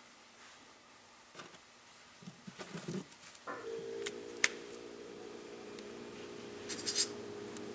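A flip phone being handled: rustling about two to three seconds in, then sharp clicks as it is flipped open and its keys pressed, a cluster of them near the end. From about halfway, a steady low drone of several held tones sets in and holds.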